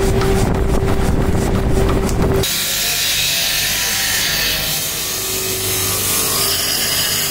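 Mechanical power hammer pounding a hot steel bar, with a steady motor hum under the blows. About two and a half seconds in it cuts suddenly to steady workshop machine noise, a hiss with faint high whines.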